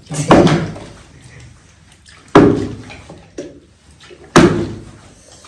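A plastic bottle flipped into the air and landing on a rug-covered floor: three loud thuds about two seconds apart, each dying away quickly.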